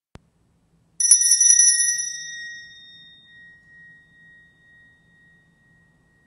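A small high-pitched bell rung with a quick flurry of strikes about a second in, then one clear tone fading slowly over several seconds.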